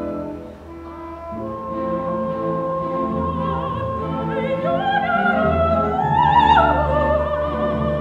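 Soprano singing with wide vibrato over a symphony orchestra's sustained strings. Her line climbs to its loudest, highest note about six seconds in, then steps down.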